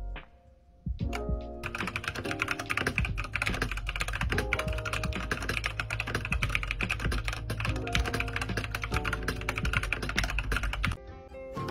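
Fast typing on a compact mechanical keyboard: a dense run of key clicks over background music. The typing starts about two seconds in and stops near the end.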